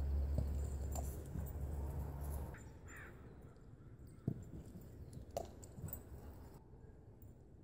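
Low rumble of wind on the microphone that stops about two and a half seconds in, leaving quieter outdoor background with a few short distant calls and soft knocks.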